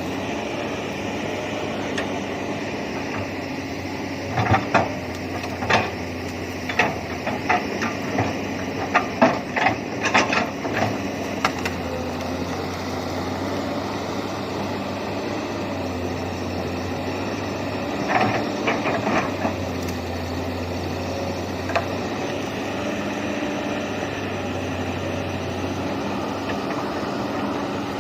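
Komatsu PC200 excavator's diesel engine running steadily, with bursts of sharp clattering knocks from about four to twelve seconds in and again around eighteen seconds.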